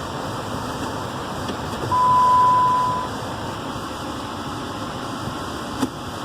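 Steady running noise inside a pickup truck creeping down a snowy hill, with one steady electronic beep about two seconds in that lasts about a second, and a short click near the end.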